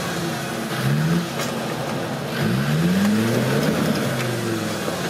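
Off-road 4x4 vehicle's engine revving up repeatedly in short rising surges, about three times, under load. A few light knocks can be heard alongside.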